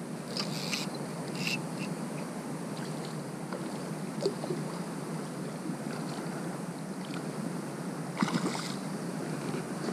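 Steady rush of a flowing river, with a few short scratchy bursts of noise near the start and again about eight seconds in.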